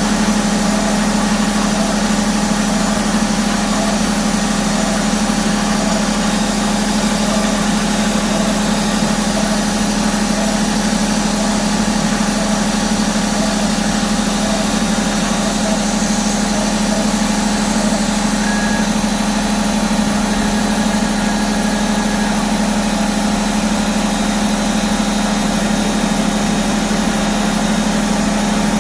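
Milling machine running steadily with a constant hum while milling holes in an aluminum bar.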